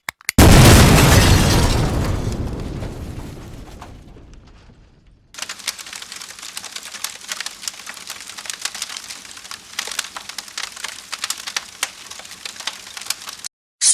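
A sudden loud boom, like an explosion, dying away over about four seconds. After a second of quiet, dense irregular crackling runs for about eight seconds and stops just before the end.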